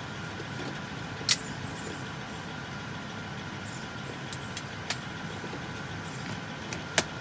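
A few sharp metallic clicks from a keyed locking rifle mount being unlocked and handled: one about a second in, a lighter one near the middle and another near the end, over a steady background hum.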